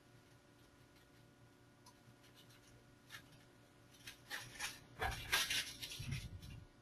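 Faint scratching and rustling with a few soft knocks. Scattered scrapes come from about three seconds in, then a louder cluster of rustles with low thumps from about five seconds.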